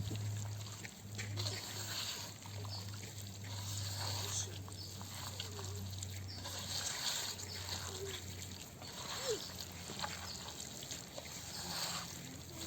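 Hands mixing raw chicken pieces with masala, yogurt and oil: wet, irregular squishing in repeated bursts.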